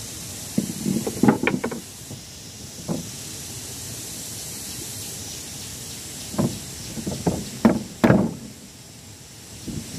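Weathered wooden boards being handled and laid down on a plank platform: a few short wooden knocks and clatters about a second in, and a cluster of them in the second half, over a steady background hiss.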